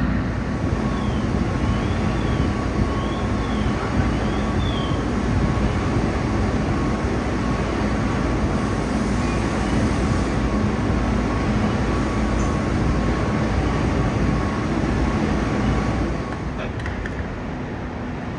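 Fire trucks' diesel engines running steadily at the scene: a dense, even rumble with a low hum and a thin steady whine. The sound eases slightly near the end.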